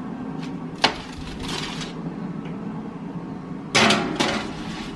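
Oven door and baking tray being handled: a sharp click about a second in, a brief scrape, then a loud clunk a little before the end, as a door is shut. A steady low hum runs underneath.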